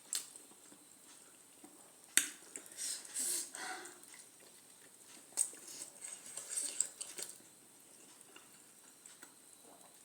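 Mukbang eating sounds close to the mic: a few sharp clicks of cutlery against a dish, with short noisy bursts of eating between them.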